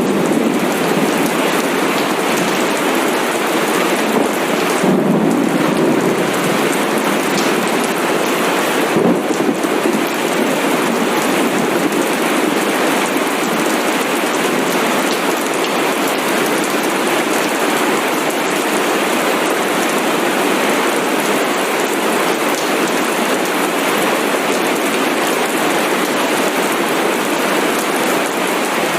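Steady rain falling, a continuous even hiss of drops.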